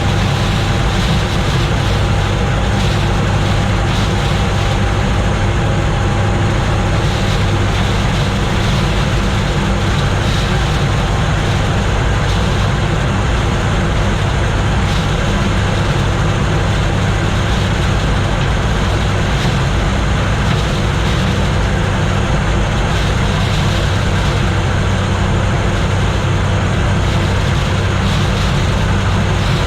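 Gleaner combine running steadily while harvesting corn, a constant loud machine hum of engine and threshing works.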